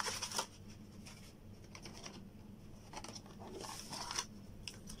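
Laptop box packaging being handled: cardboard and paper-wrapped parts rustling, with light clicks and taps against the box's plastic tray, busiest a little past halfway and ending in a few sharp ticks.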